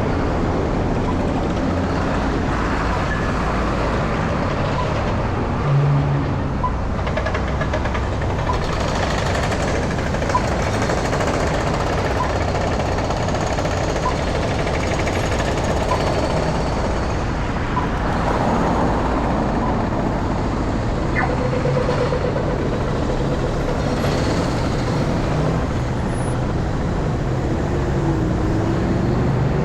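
City street traffic: engines and tyres running steadily, with a faint regular tick about once a second through the first half.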